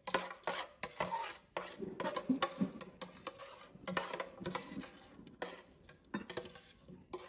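Metal salad tongs tossing a dressed leafy salad on a ceramic plate: irregular clicks and scrapes of the tongs against the plate and against each other.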